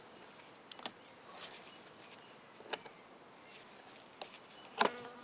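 Pliers gripping and twisting the polymer coating on the galvanised wire of a plastic horse-fence rail: a few scattered faint clicks and creaks, with a sharper click and short squeak near the end.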